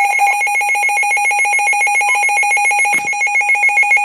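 Weather radio's alert alarm going off for a severe thunderstorm warning: a loud, continuous, rapidly trilling electronic tone. A click about three seconds in, after which the tone takes on a slower pulsing beat.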